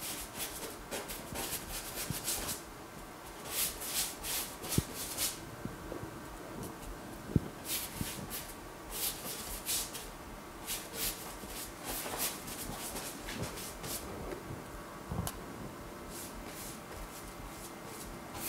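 Soft, irregular rustling and rubbing from a person moving about and handling things, over a faint steady hum.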